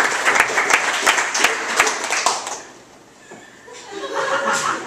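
Audience applauding, dying away about two and a half seconds in.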